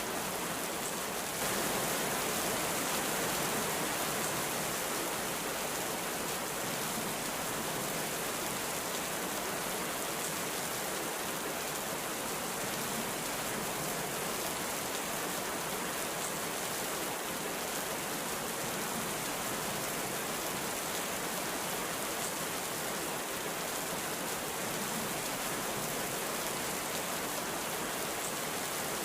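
Heavy rain falling in a steady, even hiss, a little louder from about a second and a half in; no thunder.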